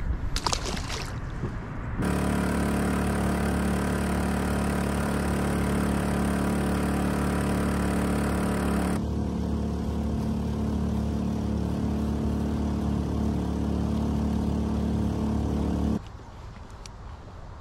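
A small splash about half a second in as a fish is tossed back into the water. Then a Honda BF2D 2 hp four-stroke outboard motor runs steadily under way, pushing a small boat for about fourteen seconds, and cuts off abruptly near the end.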